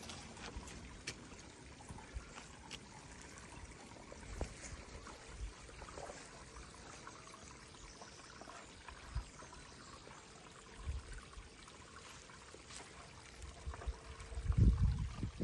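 A thin stream of spring water trickling and splashing onto rocks, a steady hiss of running water. A few low thumps near the end are the loudest sound.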